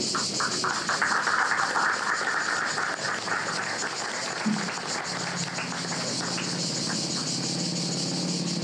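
Cicadas buzzing in a steady, high-pitched chorus. A second, lower rasping buzz is louder for the first three seconds or so, and a low steady hum comes in about halfway.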